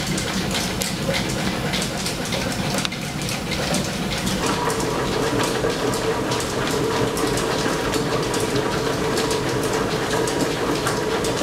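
Flat-belt line-shaft drive of an old steam-powered machine shop running, a steady clatter of rapid clicks, with a steady hum joining about four and a half seconds in.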